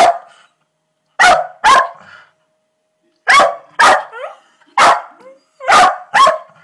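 A dog barking repeatedly: about eight loud, short barks, several coming in quick pairs.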